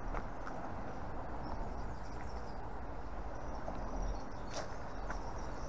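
Footsteps on asphalt as a person walks, over a steady low rumble, with faint high insect chirps in the background.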